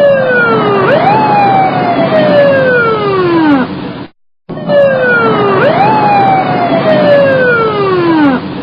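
Emergency vehicle siren in a slow wail: the tone dips, sweeps up quickly, then falls slowly over about three seconds. The same short recording plays twice, with a brief silent gap in between, over steady background noise.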